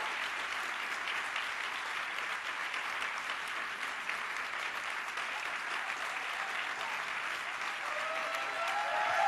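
Audience applauding steadily, with a few voices calling out near the end.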